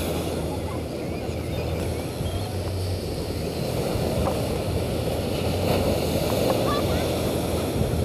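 Surf from a slightly stormy sea washing steadily onto a sandy beach, with wind rumbling on the microphone.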